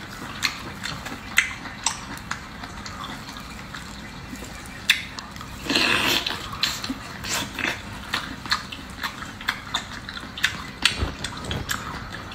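Close-miked eating of small octopus in spicy sauce: wet mouth sounds of sucking, biting and lip-smacking, with sharp clicks scattered throughout and a longer, louder wet burst about six seconds in.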